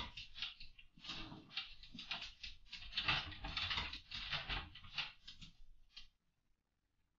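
A dog chewing and licking at a steel chain: wet mouthing and gnawing noises in irregular bursts, stopping about six seconds in.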